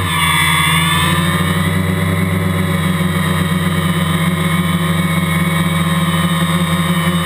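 Quadcopter's electric motors and propellers buzzing steadily, heard close up from the camera mounted on the craft. About a second in, the pitch dips and rises again as the motor speeds change.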